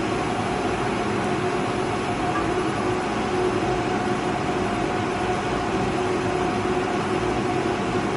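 Steady machine hum with a constant low drone, from the running robot-arm and conveyor workcell.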